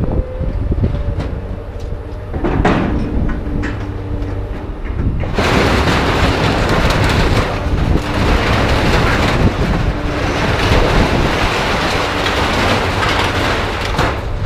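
A heavy engine rumbling under rattling and knocking. About five seconds in, a loud steady rushing hiss starts and holds.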